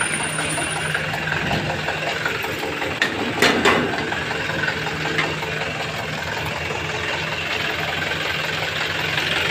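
A small box truck's engine idling steadily, with a few sharp knocks about three and a half seconds in.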